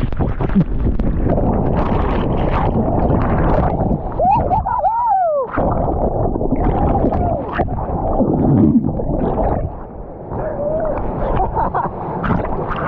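Whitewater churning against a small inflatable boat, heard from a microphone at the waterline that keeps dipping under. The rushing water turns muffled and bubbling, with warbling gurgle tones about four to five seconds in.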